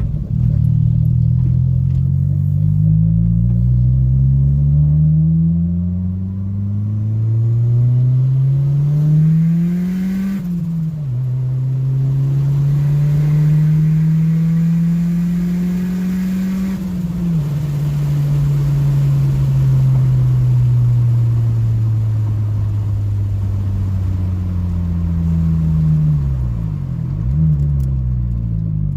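Turbocharged Honda Civic engine, heard from inside the car, pulling hard up through the gears: the pitch climbs and drops back at each shift. It then falls steadily as the car slows, with a couple of quick rev blips near the end.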